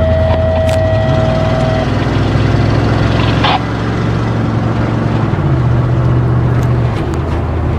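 Vehicle engine running while driving, heard from inside the cab, its note stepping up and down a few times as the speed changes. A steady high tone sounds over it and ends about two seconds in.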